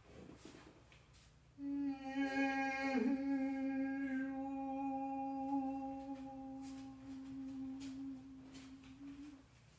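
A voice holding one long hummed or intoned note for about eight seconds, starting about one and a half seconds in, with a brief wobble in pitch near the start.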